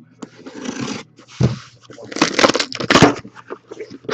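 Irregular rustling, crinkling and scraping of card-box packaging being handled, with a few sharp clicks.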